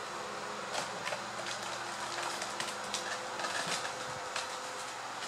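Kittens playing: scattered light clicks and rustles of paws, claws and a paper package, over a steady mechanical room hum.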